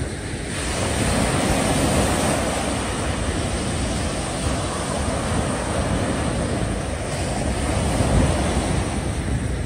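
Sea waves washing steadily against a breakwater, with wind rumbling on the microphone.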